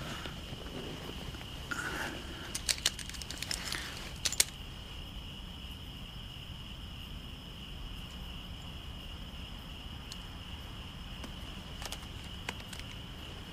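Steady night-time insect chirring, crickets, as a constant high drone. About two to four seconds in comes a brief run of rustling and sharp metallic clicks.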